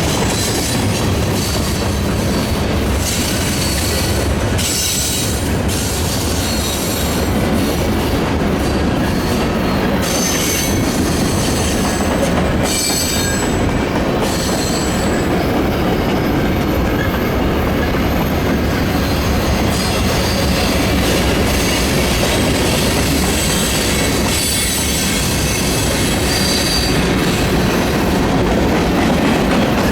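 Freight train rolling past, a steady loud rumble of its cars' wheels on the rails with high-pitched wheel squeal coming and going several times.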